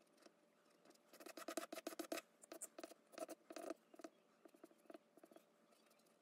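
Charcoal pencil faintly scratching across paper in quick hatching strokes, coming in bursts: a busy run of strokes about a second in, more around three seconds in, and lighter, sparser strokes near the end.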